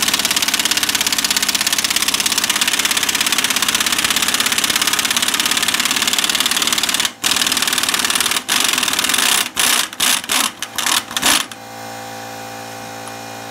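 Air impact wrench hammering a nut down on a leaf-spring U-bolt. It runs almost without a break for about seven seconds, then fires a string of short trigger bursts as the nut snugs tight. Near the end the rattling stops and a steady, quieter hum is left.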